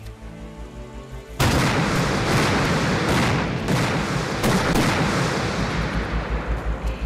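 Artillery fire and shell explosions: a sudden heavy blast about a second and a half in, then a string of further blasts with rumbling debris. Dramatic music runs underneath.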